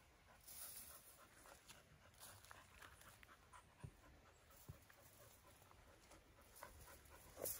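Near silence: faint scattered rustles and light clicks over a low outdoor hiss.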